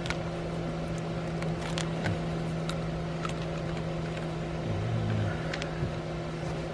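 A few light clicks and taps from a small hand tool being handled, over a steady low hum.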